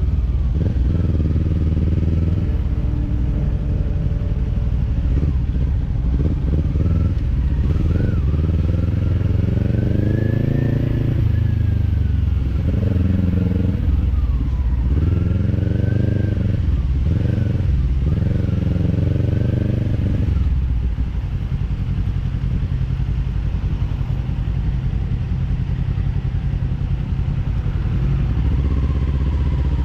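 Kawasaki parallel-twin motorcycle engine with an Orion Katya slip-on exhaust, pulling hard through the gears. Its pitch climbs and drops back again and again at each shift during the first two-thirds, then it settles to a steadier, lower note after about twenty seconds.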